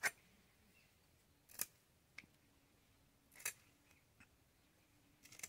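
Aar fish being cut into pieces on an upright bonti blade: four short, sharp scraping cuts a little under two seconds apart, the first the loudest, with a couple of fainter ticks between.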